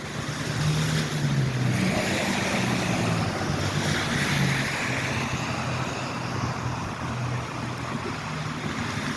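Steady rain, with wind on the microphone and a low, wavering engine hum underneath.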